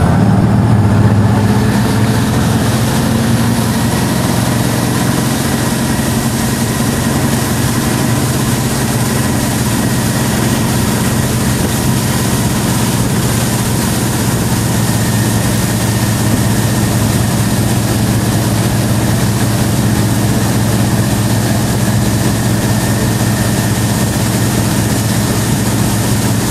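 Ski boat engine pulling a sit-down water skier out of the water, loudest about a second in as it pulls away, then running steadily at towing speed over a constant rush of wind and water.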